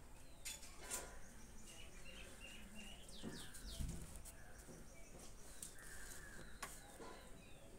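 Small birds chirping faintly in the background, a string of short rising and falling chirps, with a few sharp clicks and a single low bump about four seconds in.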